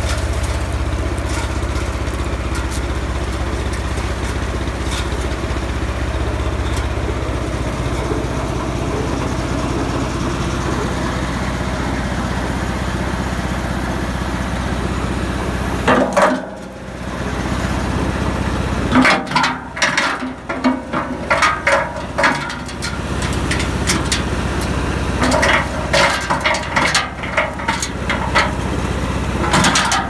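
Tractor engine running a tractor-mounted wood chipper, a steady low hum. Just past halfway the sound dips briefly, after which irregular bursts of sharp crackling and clattering come in over the running machine.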